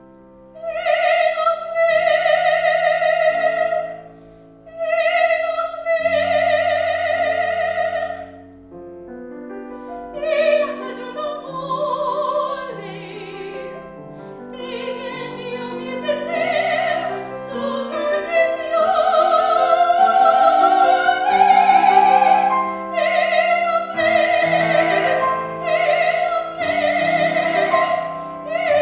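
Classical soprano singing with piano accompaniment, holding long high notes with vibrato, then moving through a more flowing line over the piano.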